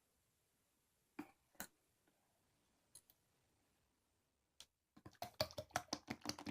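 A few scattered sharp clicks, then a quick run of many clicks and taps in the last second and a half.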